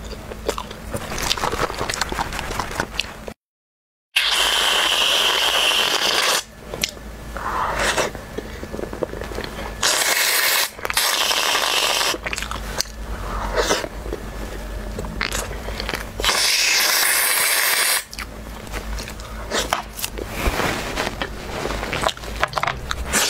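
Aerosol can of whipped cream hissing in three spurts, about two seconds, one second and two seconds long, as cream is sprayed onto cream puffs. Between the spurts come close-up biting and chewing sounds of soft pastry, and there is a short drop to silence before the first spurt.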